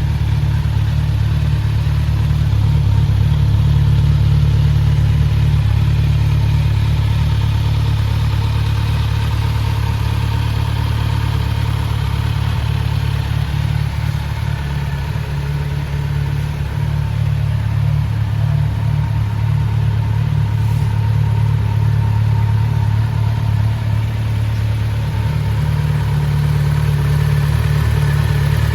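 Kawasaki Z900 SE's inline-four engine idling steadily through an aftermarket Akrapovič silencer.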